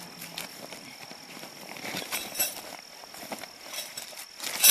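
Rustling and knocking of an Oztent's canvas and its carry bag being handled and opened on a ground tarp, in irregular scuffs and taps with a loud rustling burst near the end.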